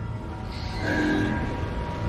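Ominous horror-film score: a low rumbling drone with a pitched swell that rises to a peak about a second in and fades.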